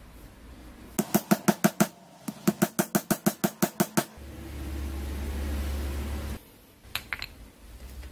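Rapid metallic clicking in two runs, about seven clicks a second, then the angle grinder's spindle and bevel gear whirring freely for about two seconds before stopping abruptly, with a few light clicks near the end.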